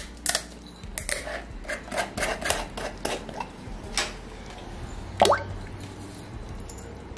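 Steel vessels and containers being handled: a quick, irregular run of knocks and clinks over the first four seconds, then a louder short rising squeal about five seconds in.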